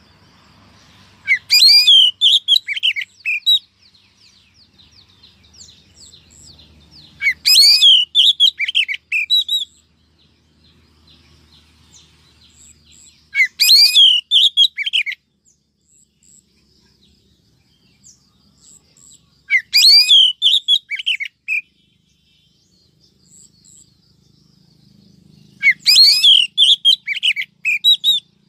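Female Oriental magpie-robin singing: five loud phrases of quick, varied high chirps and whistles, each about two seconds long and repeated about every six seconds, with faint chirps between them.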